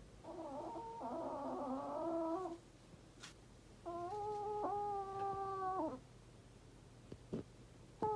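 Elderly Chihuahua snoring in its sleep: long, high, squeaky whistling tones of about two seconds each, two of them with a pause between, and a third starting at the very end.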